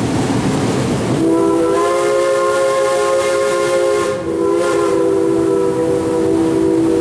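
Steam locomotive's whistle blowing a long, steady blast that starts about a second in, breaks briefly about four seconds in and carries on. Under it runs the hiss and rumble of the moving train.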